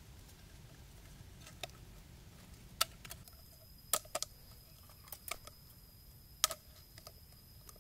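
Scissors snipping a small plastic bottle: a string of sharp, separate clicks, about eight in all, unevenly spaced.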